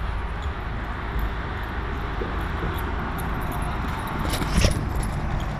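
Steady outdoor background rumble, with a brief cluster of metallic jingling clicks about four and a half seconds in.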